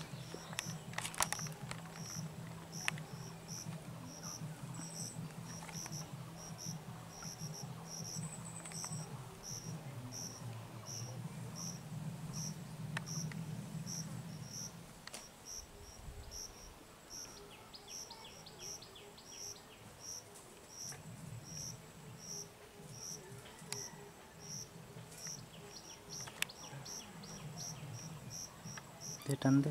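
Insects chirping in a steady, regular pulse of high chirps, about two a second, with a low steady hum underneath that fades out about halfway through.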